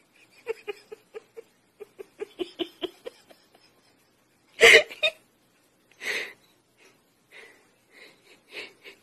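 A person laughing: rapid breathy giggles for about three seconds, a loud burst of laughter about halfway, then softer wheezing laughs.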